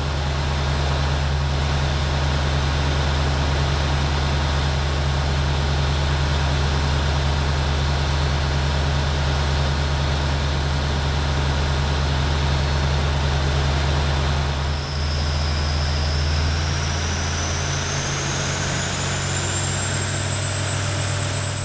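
Cummins 855 Big Cam 14-litre six-cylinder diesel running steadily under load on an engine dyno. About 15 s in the low engine note dips and shifts, and a high whine then rises steadily to the end.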